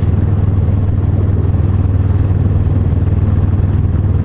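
Kawasaki ER-6n motorcycle's parallel-twin engine running steadily at low road speed, heard from the rider's seat as a loud, even low hum.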